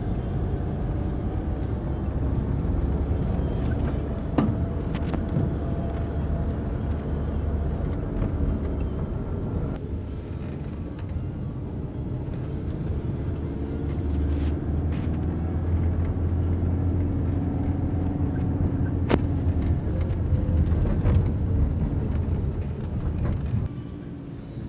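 Vehicle engine running with a steady low road rumble, with a few short knocks.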